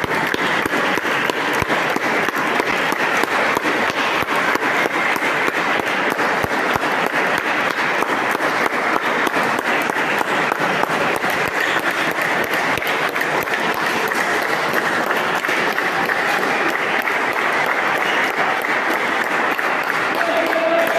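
Steady applause: many people clapping at once for the whole stretch.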